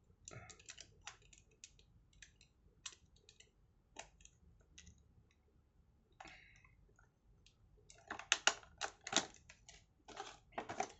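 Blade cutting the tape seals of a cardboard-and-plastic toy box: scattered sharp clicks and crackles, coming thicker and louder near the end.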